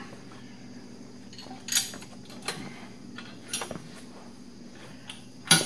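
A few sharp metal clinks a second or so apart, the loudest right at the end, as a loosely bolted motorcycle crash bar and its bolts knock together while being fitted and lined up.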